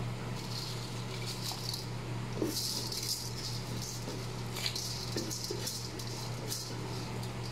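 Dry rice grains pouring out of a stainless steel bowl into a cooking pot, a rattling hiss that comes in several spurts as the bowl is tipped. A steady low hum runs underneath.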